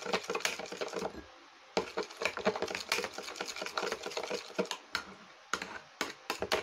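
A spoon stirring a thick paste of egg yolk, instant coffee and vinegar in a small bowl: quick clicking and scraping against the bowl's sides, pausing briefly twice.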